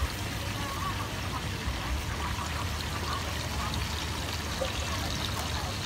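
Red pork chitterlings deep-frying in a large pan of hot oil: a steady bubbling sizzle.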